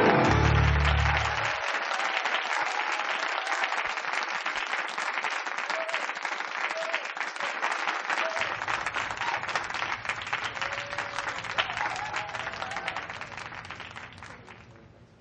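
Music ends with a last loud bass-heavy phrase about a second and a half in, and an audience keeps applauding, fading out near the end.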